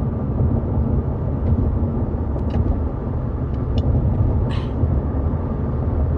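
A steady low rumble throughout, with a few faint clicks and a brief hiss about four and a half seconds in.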